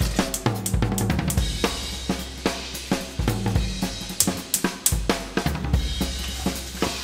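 Background music: a steady drum-kit beat with snare, hi-hat and a bass line.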